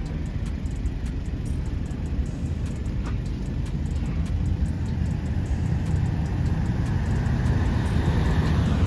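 Vehicle engines running close by, heavy in the low end, growing gradually louder over the last few seconds.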